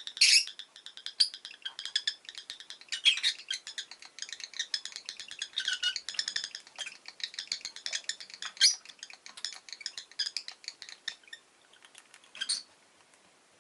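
Rosy-faced lovebirds chattering: rapid high chirps, squeaks and clicks in a dense run that thins out about eleven seconds in, with one sharp call near the end.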